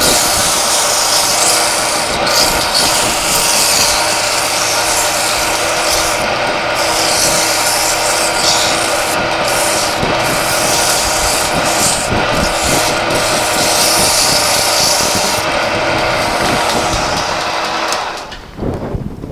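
Wooden charpai leg spinning on a wood lathe while a hand presses abrasive against it, a steady dense rubbing as the turned leg is sanded smooth, over the lathe motor's steady hum. The rubbing stops and the level drops near the end.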